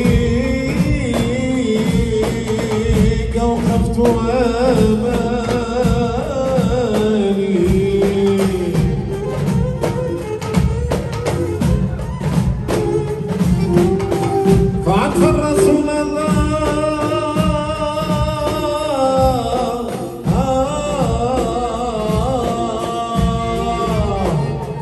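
Live Tunisian folk music: a row of bendir frame drums beats a dense, steady rhythm under a sung and played melody. About fifteen seconds in, a higher melody line comes in over the drums.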